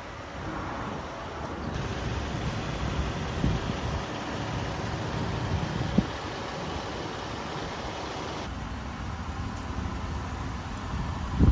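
Toyota 4Runner's 4.0-litre V6 engine idling steadily, with a single sharp click about halfway through.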